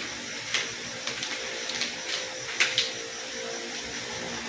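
Sheets of printed paper being handled and turned over, rustling and crackling in several short bursts, loudest about two and a half seconds in, over a faint steady hum.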